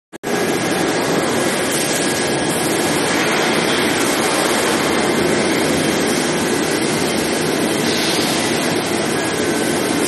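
Steady roar of a running induction heat treatment line for oil drill pipe, with faint high steady whine tones over the machinery noise.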